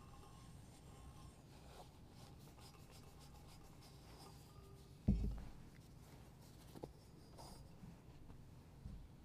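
Faint rubbing of a cloth purificator wiping out a silver chalice. A dull thump about halfway through, the loudest sound, and a small click a couple of seconds later.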